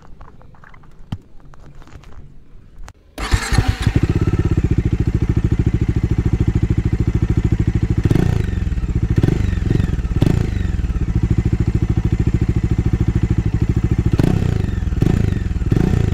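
Bajaj Dominar 400's single-cylinder engine, fitted with a loud aftermarket exhaust, is started about three seconds in and catches at once, then idles with a fast, even thump. The throttle is blipped in short revs several times in the middle and again near the end.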